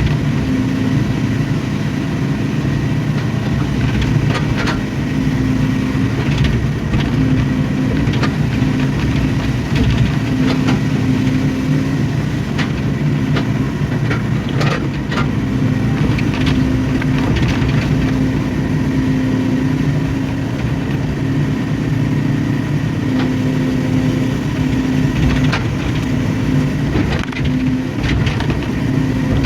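Hydraulic excavator's diesel engine running steadily under work, its pitch rising and dipping a little, with scattered short knocks.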